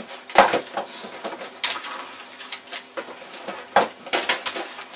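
Computer keyboard and desk clattering under a boy's hands: irregular keyboard clicks with a few louder clacks and knocks among them.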